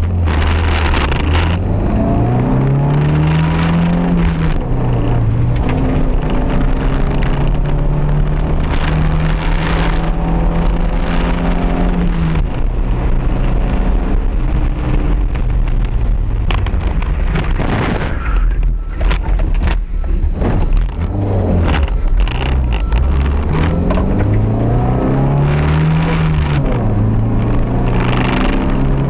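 1988 Honda CRX HF's four-cylinder engine, heard from inside the cabin, driven hard on a race track: its note climbs and drops suddenly at upshifts, about four seconds in and again near the end, and holds steady between. Around the middle the engine note falls away and a rough noise takes over for a few seconds before the engine pulls up again.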